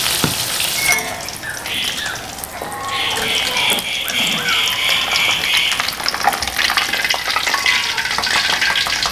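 Hot oil sizzling as tempeh fries in a steel wok, with a metal spatula and a perforated steel skimmer clinking and scraping against the wok as the fried pieces are lifted out of the oil.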